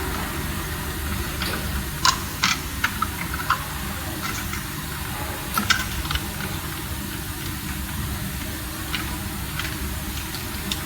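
Scattered small sharp clicks and taps of wiring work on DIN-rail devices, with wires, terminals and hand tools handled, over a steady background hiss and low hum.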